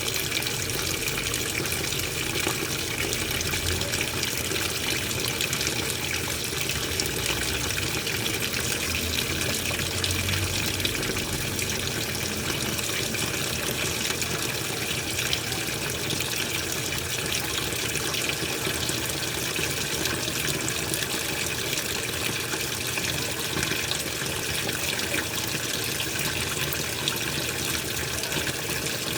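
Washing machine with water running in steadily: an even, unbroken rush of water.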